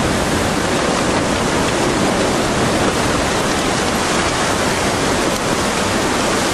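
Tsunami floodwater rushing and churning as it sweeps wrecked houses and debris along: a loud, steady rush of water.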